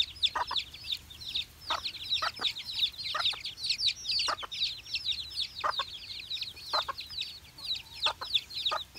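A brood of baby chicks peeping nonstop: many short, high, falling chirps. About a dozen short, lower clucks from the mother hen are spread through it.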